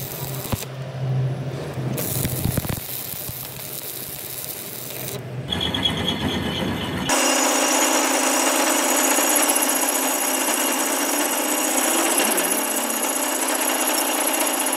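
Power tools working on steel, heard as several short clips cut together. From about seven seconds in, one tool runs steadily with an even noise.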